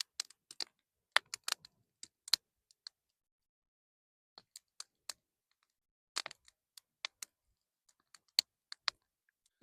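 A scatter of short, sharp clicks and taps at irregular intervals, some in quick clusters, with silence between them.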